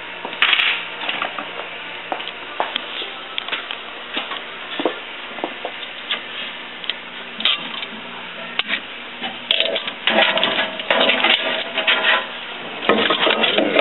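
Hand tools and metal fittings clinking and rattling as a screwdriver and pliers are worked among the air fittings and wiring of a press cylinder. The clicks are scattered, with denser clatter a little past two-thirds of the way through and again near the end.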